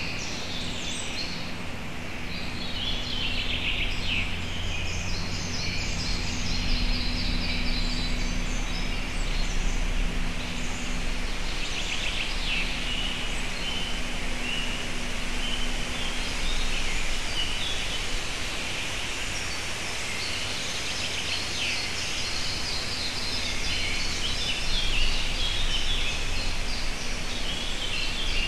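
Small forest birds singing on and off, short chirping phrases heard throughout, over a steady background hiss and a low steady hum.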